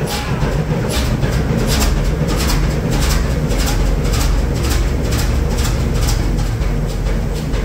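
Fairbanks Morse 32E six-cylinder two-stroke diesel stationary engine running at slow speed: a steady deep rumble with a regular clatter of sharp knocks several times a second.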